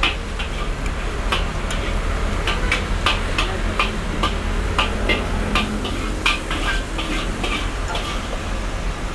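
Metal spoon clicking and scraping against a ceramic plate of fried rice, in irregular light clicks, over a steady low hum.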